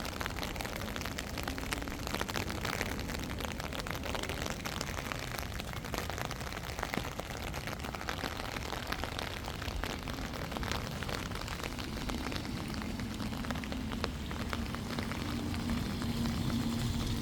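Rain pattering steadily, a hiss full of small irregular ticks. Near the end a low steady hum comes in.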